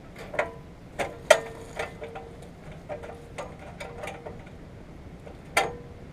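Irregular metallic clinks and taps of hand tools on engine parts, a few of them leaving a short ringing tone; the sharpest strikes come about a second in and near the end.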